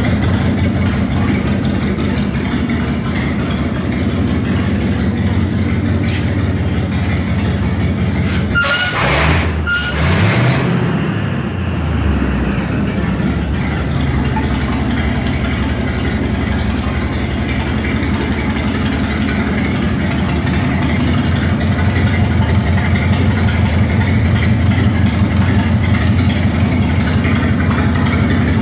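A 302 Ford V8 engine running steadily as it powers a 22W cable tool drilling rig. About nine seconds in there is a brief louder burst of noise with a falling pitch, and the engine runs a little louder in the last several seconds.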